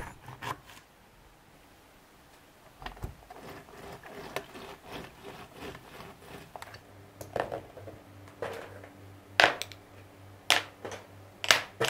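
Scattered taps and clicks of things being handled and set down: a knife on a plastic chopping board while an orange is cut and juiced, then makeup brushes and cosmetics laid on a hard tabletop. A few sharp clicks in the last three seconds are the loudest.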